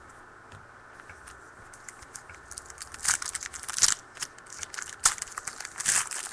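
A few light clicks, then from about halfway a loud crinkling and tearing: the foil wrapper of a trading-card pack being ripped open.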